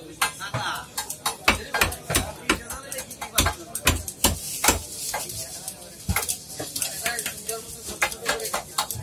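Raw fish being sliced on a bonti, a fixed curved blade, as the pieces are drawn against its edge: irregular sharp cuts and scrapes, several a second, with a few dull thumps near the middle.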